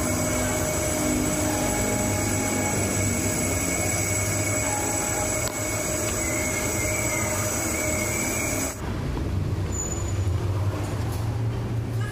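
Steady machine drone with several high whining tones held over a low hum. The high tones drop out abruptly near the end, leaving the low hum.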